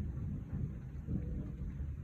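Thunder rumbling low and slowly dying away.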